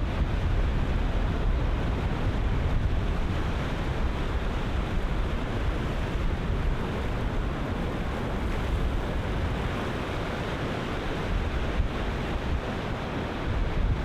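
Ocean surf breaking and washing in a steady, continuous rush, with wind buffeting the microphone in a low rumble.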